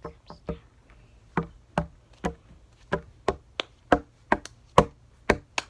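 A child's hands making a series of sharp taps, about fourteen at uneven spacing, roughly two a second.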